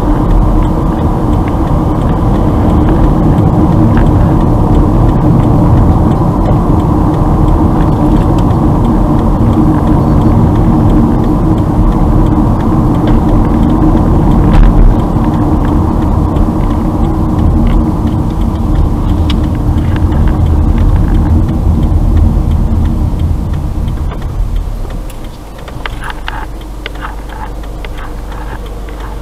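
Road and engine noise inside a moving car's cabin, a steady rumble that falls away near the end as the car slows to a stop in traffic.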